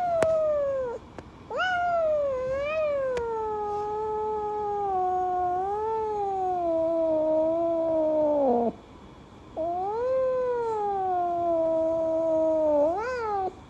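A cat yowling in long, drawn-out meows. A short call comes first, then one held for about seven seconds that wavers and slowly sinks in pitch, then a third of about four seconds that ends in a quick upward sweep.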